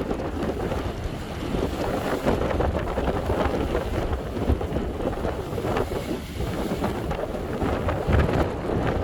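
Strong wind buffeting the microphone in heavy low gusts, over the rush of sea waves breaking against a breakwater.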